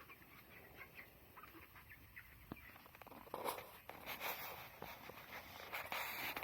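A flock of young broiler chickens peeping in short, high chirps, with louder rustling and scuffling from about halfway through.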